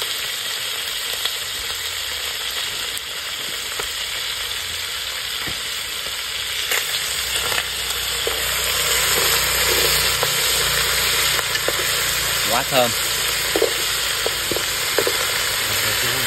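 Eel pieces sizzling as they stir-fry in a pot, a steady hiss with the clicks and scrapes of a utensil stirring them.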